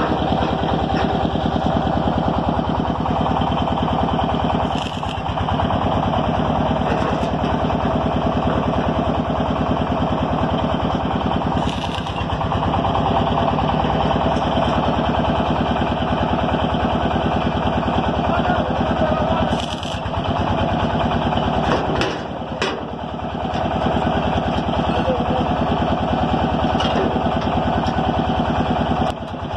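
Engine running steadily at an even speed, with short dips in level about 5, 12, 20 and 22 seconds in.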